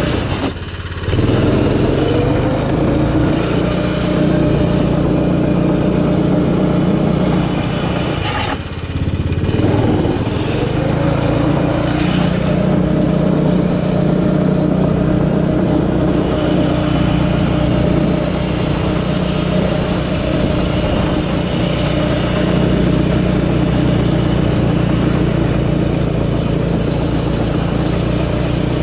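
Arctic Cat 120 youth snowmobile's small engine running under steady throttle. It eases off briefly twice, about a second in and around nine seconds in, then rises back up each time.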